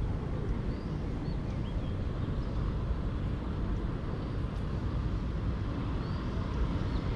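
Steady low rumble of wind buffeting the microphone, with a few faint, short high chirps of small birds.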